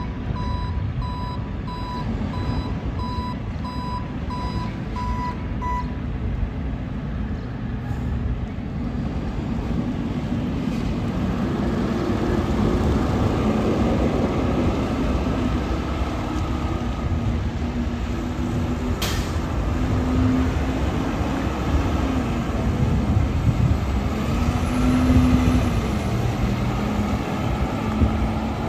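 Front-loader garbage truck's back-up alarm beeping about eight times over its running diesel engine as the truck reverses. The beeping then stops and the engine grows louder and changes pitch as the truck pulls away, with one sharp click about two-thirds of the way through.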